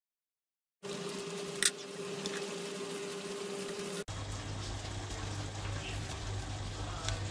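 After a brief silence, a steady background hum with one sharp click about a second and a half in. After an abrupt cut, a lower steady hum with faint wet handling sounds as fingers scrape the seeds out of a halved bitter gourd.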